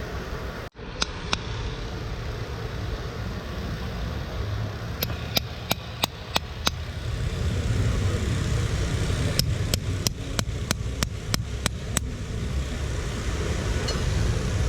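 Farrier's hammer tapping in quick runs of sharp strikes, a short run of about five and then a longer run of about nine, roughly three a second, over a steady low rumble of road traffic.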